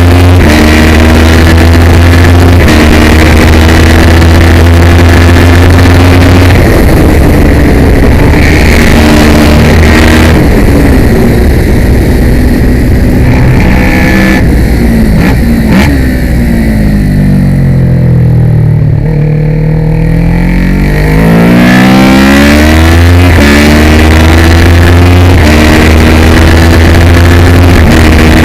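Kawasaki ER650 racing motorcycle's 649 cc parallel-twin engine running hard at high revs. About two-thirds of the way through, the pitch falls steeply as the bike slows for a corner, then climbs back up as it accelerates out and holds high again.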